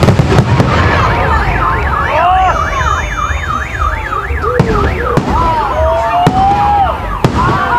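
Car alarms wailing with a fast rising-and-falling warble, other alarm tones gliding over it, while fireworks bangs go off several times in the second half.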